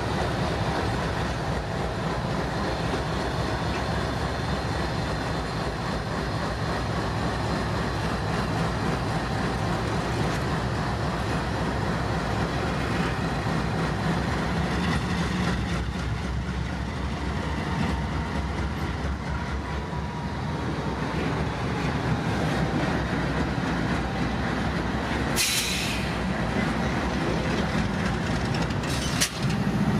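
CN GE C44-9W diesel-electric locomotive running steadily as it rolls slowly past, with wheel and rail noise. A short hiss breaks in about 25 seconds in.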